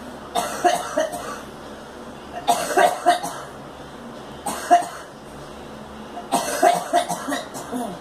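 A girl coughing in four fits, each made of several short coughs, about two seconds apart.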